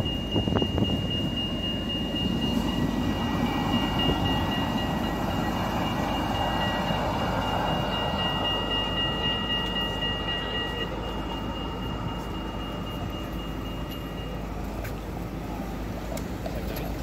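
Articulated electric city tram passing, its rolling rumble swelling and then fading away, with a steady high whine running through the first part.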